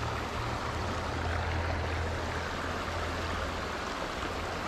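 Shallow river current flowing steadily over a rocky bed: an even rushing with a low rumble underneath.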